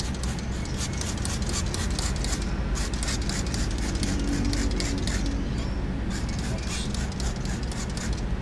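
Hand trigger spray bottle squirting water onto the inside of a windshield, wetting the glass for tint film. It comes in quick, repeated short sprays, thinning out around the middle and picking up again, over a steady low hum.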